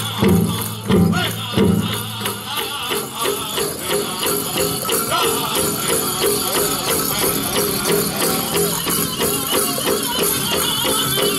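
Powwow drum group beating a large drum in a steady rhythm and singing a song for the men's chicken dance, with the jingling of dancers' leg bells; a few heavier beats stand out in the first two seconds.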